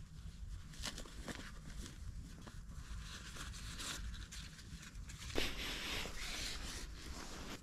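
Soft rustling of a nylon stuff sack and cord being handled and pulled out, with small scattered clicks and a louder rustle about five seconds in as the line is drawn out.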